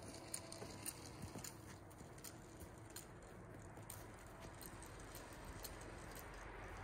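Very quiet ambience inside a parked vehicle: a faint low hiss with scattered light ticks, a few more of them in the first two seconds.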